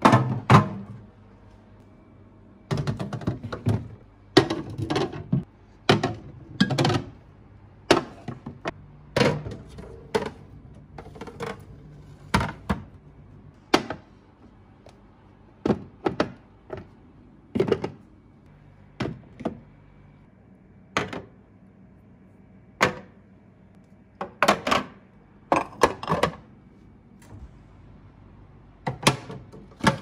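Plastic food containers and bottles being set back onto a refrigerator's glass shelves: a string of irregular light knocks and clunks, some in quick clusters of two or three.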